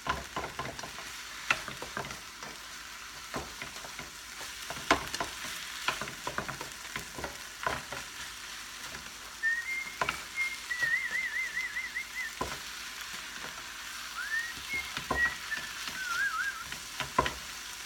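Ground beef and onions sizzling in a frying pan over a raised flame, with the spoon clicking and scraping against the pan as it is stirred. Twice in the middle a short warbling whistle sounds over the frying.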